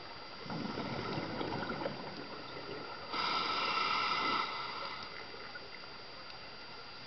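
Scuba diver breathing through a regulator underwater: a burbling rush of exhaled bubbles for about two seconds, then a louder hiss of an inhale through the regulator lasting about a second and a half.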